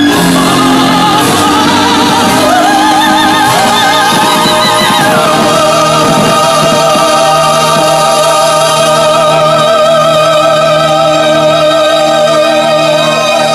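Music with a singer holding long notes with a wavering vibrato over sustained instrumental chords.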